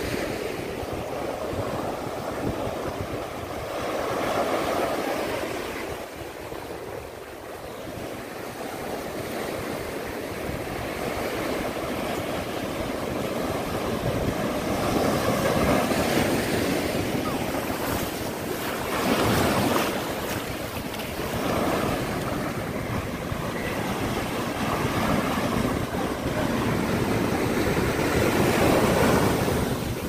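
Small waves breaking and washing up the sand and around boulders, the surf swelling and easing every few seconds. Wind rumbles on the microphone.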